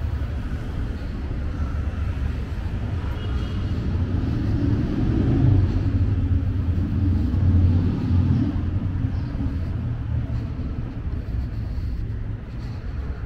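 Street traffic in a city: a steady low rumble, with a motor vehicle passing close by, swelling to its loudest about five to eight seconds in and then fading.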